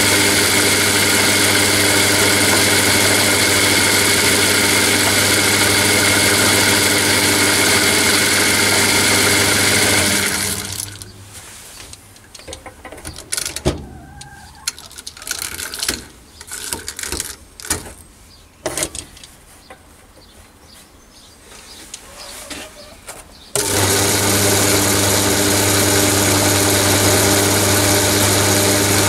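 Belt-driven Chinese mini lathe running steadily, its motor and V-belt drive giving a hum with a few steady tones. About ten seconds in it is switched off and runs down over a second or so; scattered clicks and knocks of hands on the stopped belt and pulleys follow, then it starts again abruptly about five seconds from the end and runs steadily.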